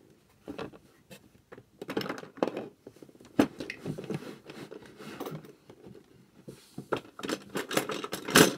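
Irregular scraping, rustling and small knocks from objects being handled close to the microphone, with the loudest knock near the end.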